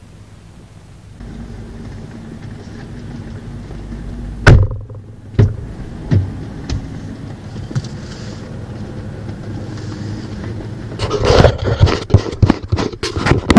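Inside a parked vehicle: a steady low hum sets in about a second in, then a single loud thunk of a vehicle door shutting about four and a half seconds in, followed by a few lighter knocks. From about eleven seconds on, a quick run of clicks, knocks and rustles as the dash camera is handled.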